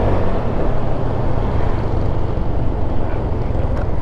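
Honda Click 125i scooter's single-cylinder engine running while under way, mixed with a steady low rumble of wind noise on the helmet microphone.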